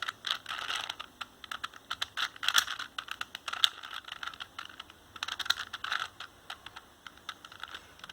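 4x4x4 Rubik's cube being turned by hand: quick runs of plastic clicks and clatter as its layers are twisted through a move sequence, in bursts with short pauses between them.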